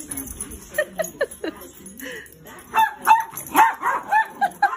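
Small dogs yapping in play: a few short high barks about a second in, then a quicker run of yaps through the second half.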